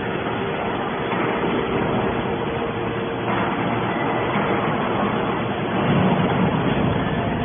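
Hydraulic scrap metal baler running: a steady machine drone with a constant humming tone, swelling briefly in the low end about six seconds in.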